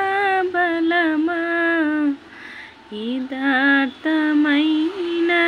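A woman's voice singing a slow tune without accompaniment, in long held notes that step up and down in pitch, breaking off briefly about two seconds in.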